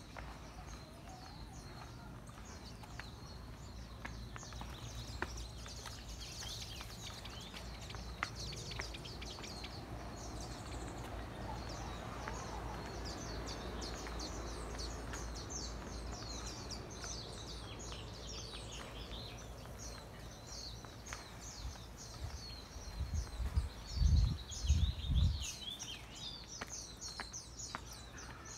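Many small birds chirping continuously in quick, overlapping high chirps, over a steady low rumble. Near the end come a few loud, heavy low thumps.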